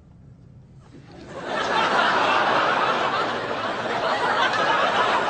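Studio audience laughing: the laughter swells up about a second in and keeps going loudly.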